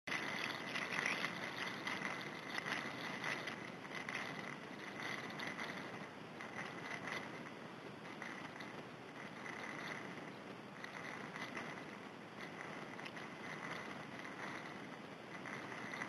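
Water noise picked up by a small camera taped to a swimming Adelie penguin's back: a steady rushing hiss with scattered faint crackles, a little louder in the first few seconds.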